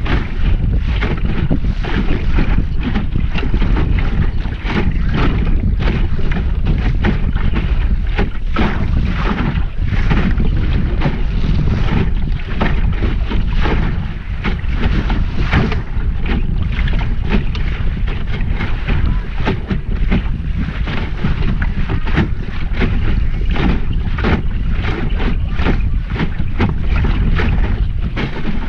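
Heavy wind noise on the microphone, a steady low rumble, with water rushing and splashing against the hull of a small sailing dinghy under way.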